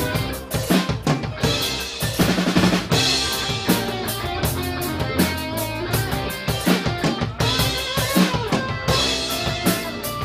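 Celtic rock band playing live: mandolin, electric and acoustic guitars, and bass guitar over a drum kit with a steady driving beat and cymbals, with no singing.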